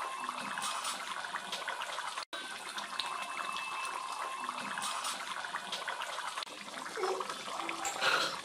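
Fish curry boiling in an open aluminium pan, a steady bubbling and popping. A brief louder noise near the end.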